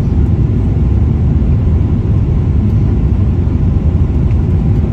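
Steady low rumble of engine and airflow noise inside the cabin of a British Airways Boeing 777-300 on its low approach to landing.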